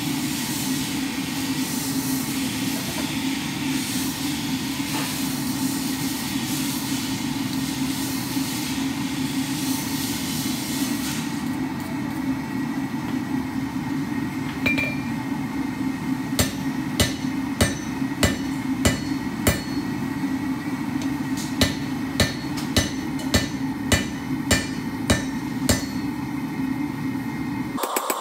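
Hand hammer striking a red-hot steel bar on an anvil, forging a hammer eye drift: a single ring about halfway in, then two runs of steady blows at about two a second with a short pause between. Underneath is a steady roar with a low hum, hissier in the first part.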